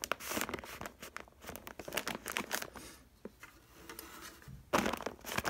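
Paper dust bag of a Riccar upright vacuum crinkling and rustling as it is handled, with scattered small clicks and knocks, louder near the end. The vacuum is not running.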